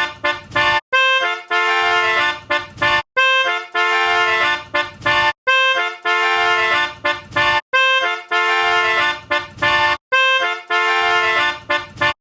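Instrumental music: a single melody instrument playing a short tune phrase over and over, about every two and a quarter seconds, with a brief silent gap between phrases.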